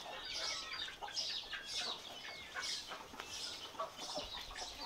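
Chickens clucking and birds chirping: a busy run of short, high chirps one after another.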